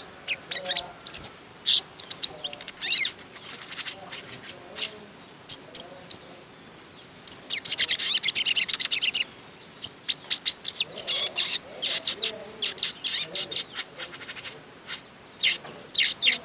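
Sogon (sogok ontong, a sunbird) singing: a fast run of high, sharp chirps and short trills, with a dense, loud burst of song about eight seconds in. It is a full, varied 'gacor' song of the kind used as a lure recording to set other sogon birds singing.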